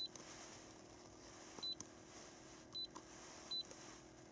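iCarsoft i930 diagnostic scan tool's keypad beeping as its buttons are pressed to step through the menus: four short high beeps at uneven intervals.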